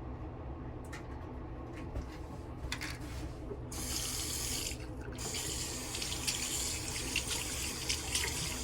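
Bathroom sink tap turned on about a third of the way in and running, with a short break about a second later, over a steady low hum. A few light clicks come before the water starts.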